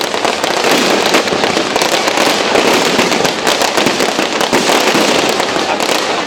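Fireworks crackling: a dense, continuous run of rapid small pops with little deep boom.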